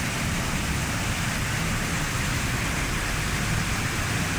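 Floodwater rushing fast down a street with rain falling, heard as a steady, even noise of running water with a low rumble under it.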